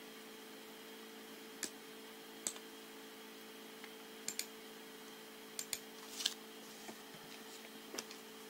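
Computer mouse clicking: about ten short, sharp clicks scattered irregularly, some in quick pairs like double-clicks, over a faint steady hum.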